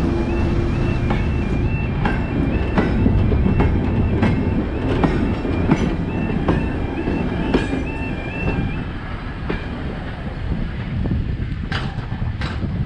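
Train running past on jointed track: wheels click over the rail joints about every two-thirds of a second over a low rumble, easing off somewhat in the last few seconds. A high electronic two-tone alarm sounds throughout.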